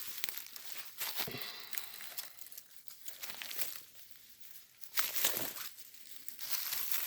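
Vines, twigs and dry leaves crackling and rustling as a person pushes through tangled undergrowth on foot. It comes and goes unevenly, quieter for a couple of seconds in the middle and louder again about five seconds in.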